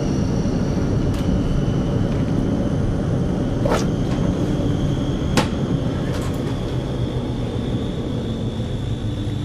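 Aircraft engines running loudly, heard from inside the cabin as a steady rumble with a high whine over it. Two sharp clicks come about four and five and a half seconds in.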